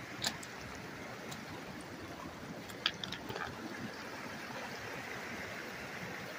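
Shallow mountain river running over rocks, a steady rush of water. Two short sharp clicks cut through it, about a third of a second in and again about three seconds in.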